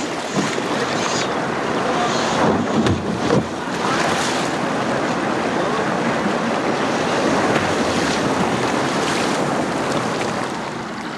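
Water pouring over a low river weir: a steady, even rush of falling and churning water.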